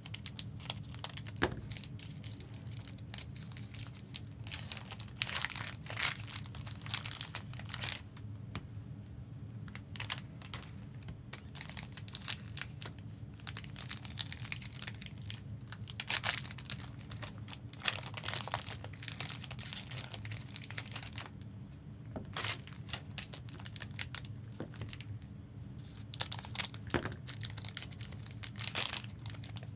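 Foil wrappers of Fleer Ultra Wolverine trading card packs crinkling and tearing as packs are opened, in irregular rustling bursts over a steady low hum.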